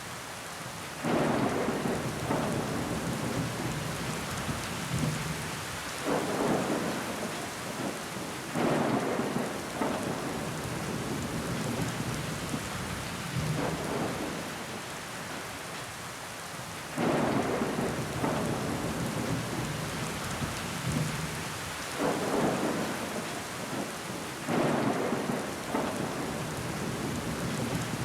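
Steady rain falling against window glass, a continuous hiss, with louder swells of sound that come on suddenly and fade away every few seconds, about seven in all.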